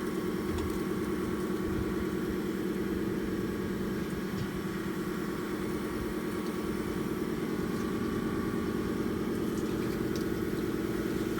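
A motor running steadily with an even, unchanging low hum.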